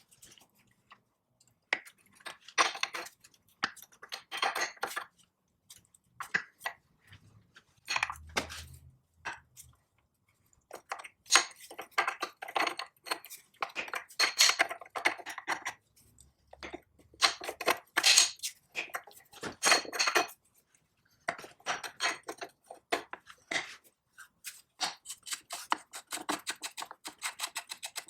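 Metal parts clinking, clattering and scraping as they are handled and worked on, in irregular bursts with short pauses, turning to a fast, even rattle of ticks near the end.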